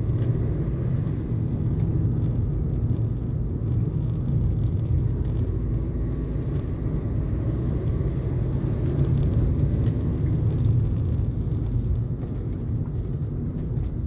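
Steady low rumble of a car driving along a road, with engine and tyre noise heard from inside the cabin.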